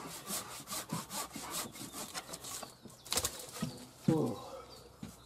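Hand saw cutting through a wooden tree stump, with rapid back-and-forth strokes at about four a second. The strokes stop a little before 3 s in, followed by a sharp knock and then a louder knock with a short falling-pitched sound.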